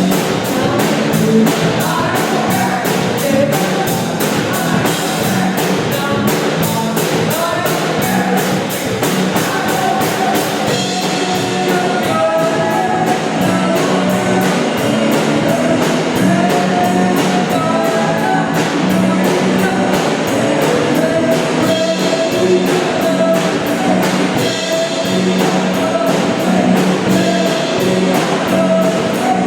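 A rock band plays a song with drum kit, guitar and a singing voice over a steady beat.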